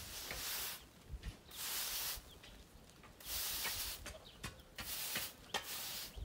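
Push broom sweeping a dry dirt yard, its bristles scraping and swishing across the packed earth in repeated strokes about every second and a half.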